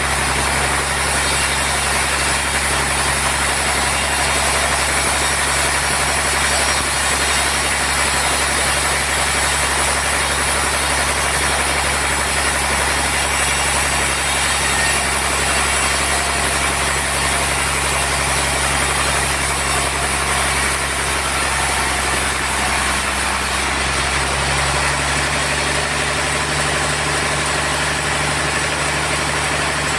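Sawmill machinery running steadily with a constant engine hum and a dense high noise. About three-quarters of the way through the sound shifts, its highest part dropping away and a new low tone coming in.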